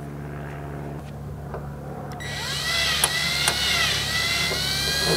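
Cordless drill/driver motor whining as it drives into the bus's sheet-metal side. It starts about two seconds in, its pitch rising, then sagging briefly under load before holding steady. Before it, a low steady hum.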